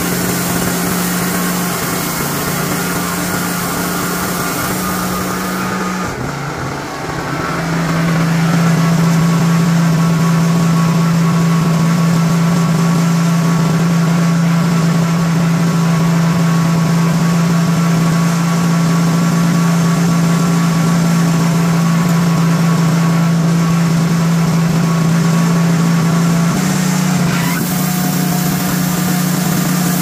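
Honda gas engine of a Wood-Mizer LT40 band sawmill running steadily. Its pitch dips briefly about seven seconds in, settles a little lower and louder, and steps back up near the end.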